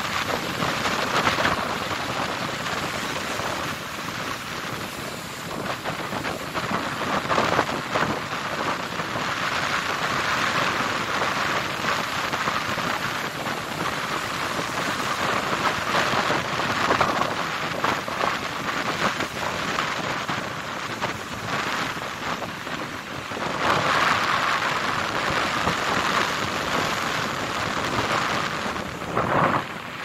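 Rough sea surf breaking and washing over a rocky shore: a loud, continuous rush of white water that swells as each wave breaks. It cuts off abruptly near the end.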